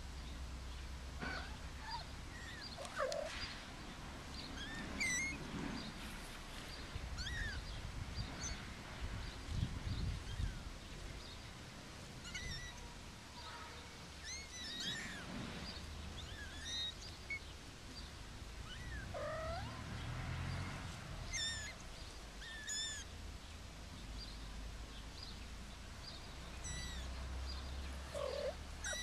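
Young kittens mewing: short, high calls that rise and fall, scattered throughout at irregular intervals.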